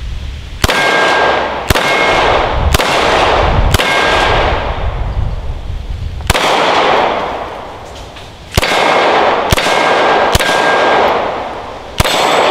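Canik TP9SFx 9mm pistol firing about nine shots: four about a second apart, then five more after a pause. Each shot echoes, and several are followed by the brief ping of a struck metal target.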